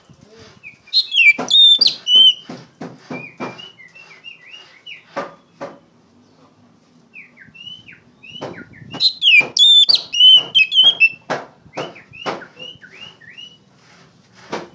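Oriental magpie-robin (kacer) singing loudly: two bursts of clear, rising and falling whistled notes mixed with short harsh notes, starting about a second in and again about eight seconds in, with scattered quieter whistles between.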